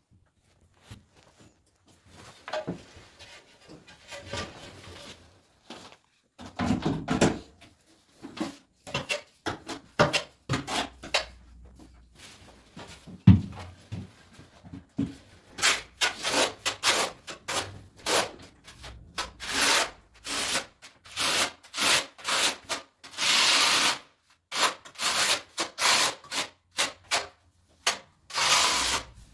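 A steel notched trowel scrapes tile adhesive across the back of a large tile, back-buttering it. The scraping strokes come about once a second and grow louder and longer over the second half. Before that there are softer scrapes and handling, with one sharp knock about 13 seconds in.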